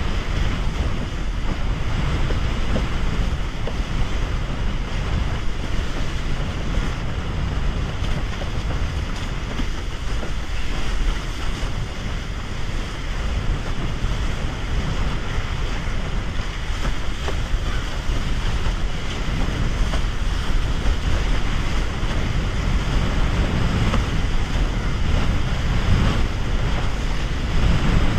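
Strong wind buffeting an action camera's microphone, over water rushing and splashing against the hull of a windsurf raceboard sailing fast through chop.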